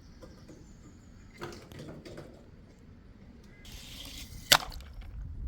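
Toy cars being handled in play with water: scattered light knocks, a short swish of water and then one sharp click, the loudest sound, near the end.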